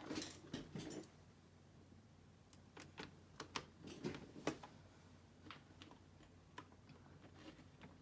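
Faint, irregular light clicks and taps from handling the laptop, a soft rustle at first and then a dozen or so separate sharp clicks of plastic parts and keys or buttons.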